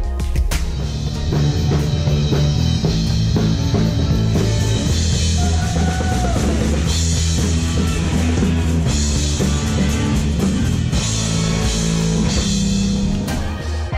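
Live rock band playing: drum kit with crashing cymbals, electric guitar and a busy low bass line. The music stops near the end.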